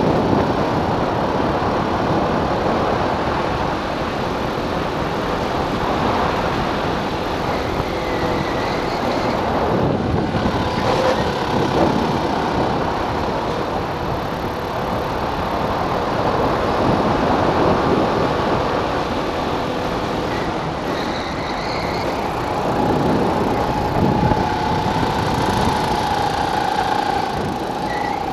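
Go-kart engine running at speed, heard from the kart itself over dense wind and road noise. The engine pitch shifts up and down a little as the kart goes through the corners.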